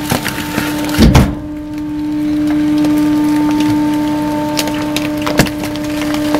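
Machinery running with a steady hum, with scattered creaks and knocks of metal and wood and one heavy thump about a second in.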